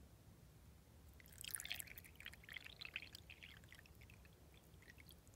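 Water poured from a glass pitcher into a small glass tumbler holding glass marbles: a soft splashing trickle that starts about a second in, is loudest at first and thins out near the end.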